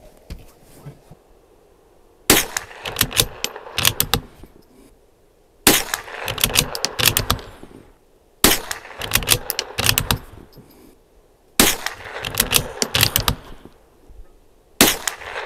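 Five shots from a Bergara B14R bolt-action .22 LR rifle firing Remington Target ammunition, about three seconds apart. Each sharp report is trailed by a second or so of clattering echoes and clicks.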